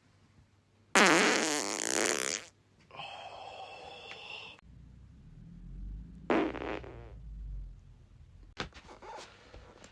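A person farting: a loud, buzzing fart about a second in that lasts about a second and a half, then quieter sounds and a shorter fart about six seconds in.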